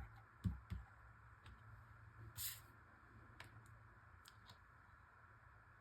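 Near silence with faint handling sounds of paper pieces being glued and pressed down: a couple of soft taps near the start, a brief rustle about two and a half seconds in, and a few light clicks.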